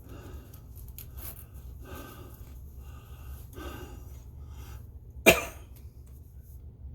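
A man breathing audibly, four slow breaths, then one sharp cough about five seconds in, under a low steady hum.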